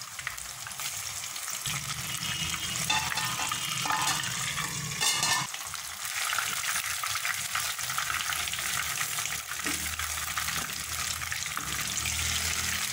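Masala-coated fish pieces sizzling steadily as they fry in hot oil in a non-stick kadai. A wooden spatula turns the pieces and scrapes the pan, most noticeably about three to five seconds in.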